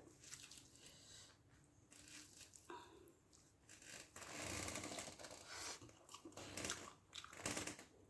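Close-miked eating sounds: chewing, and fingers working through rice and fish gravy on a banana leaf, in irregular wet, crinkly bursts. The longest and loudest comes about four seconds in, with two sharper ones near the end.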